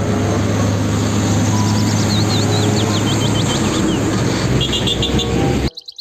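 A diesel tanker truck's engine running steadily with road noise as it drives past, a few high chirps sounding about two seconds in. The sound cuts off suddenly near the end.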